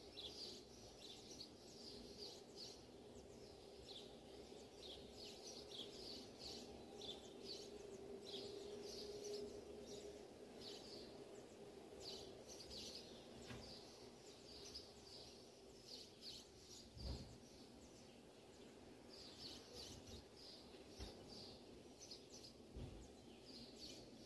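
Faint sizzling of garlic slivers and whole mustard seeds frying in hot mustard oil for a tempering, with many small irregular crackles and pops. There are a couple of soft knocks in the second half.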